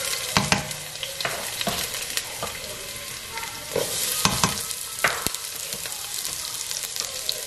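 Chopped red onion sizzling as it fries in a hot nonstick pot, with several sharp knocks and scrapes from a spatula as more onion is pushed in and stirred.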